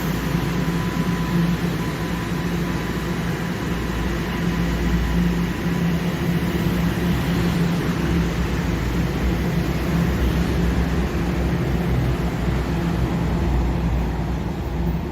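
TTC subway train heard at a station: a steady rumble and hum with no sharp knocks or breaks.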